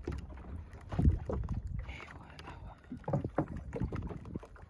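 Water slapping against the hull of a small open fishing boat, in irregular low thuds with a stronger slap about a second in.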